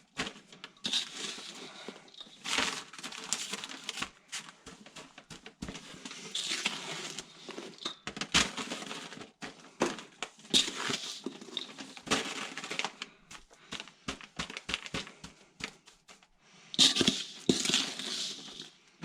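Irregular crunching and crinkling as newspaper and damp sugar mix are handled and pressed into a sugar board frame, with scattered small knocks and clicks.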